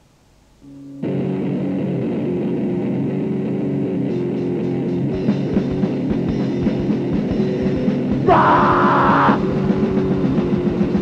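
A rock band's recorded song starts about a second in, after a moment of faint hiss: guitars and drums playing loud and dense, with a shout breaking in for about a second near the end.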